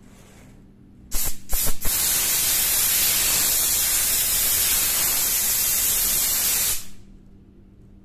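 Compressed air from a homemade fridge-compressor air compressor rushing out of a handheld air blow gun. A few short puffs come about a second in, then a steady blast of about five seconds that cuts off.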